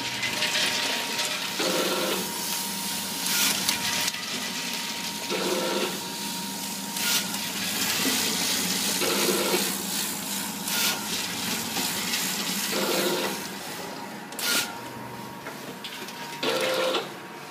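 Automatic french fries pouch packing machine running, pulling film and forming, filling and sealing bags, with a repeating cycle roughly every two seconds over a steady mechanical hiss.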